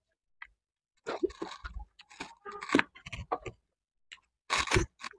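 People chewing and biting pizza slices close to a clip-on microphone: irregular bursts of crunching and mouth noises for a couple of seconds, then a short burst near the end.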